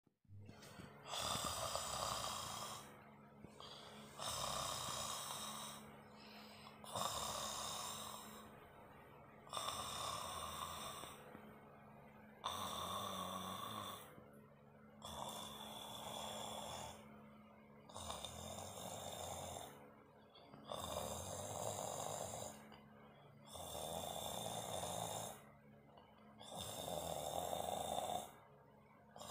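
A person snoring in a steady rhythm: a loud snore about every two and a half to three seconds, with quieter breathing between.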